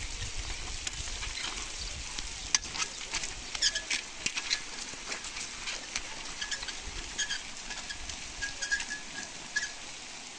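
Stone roof roller being dragged over a rain-wet mud-and-straw roof to press it down: a steady crackling with many scattered sharp clicks and now and then a short high squeak.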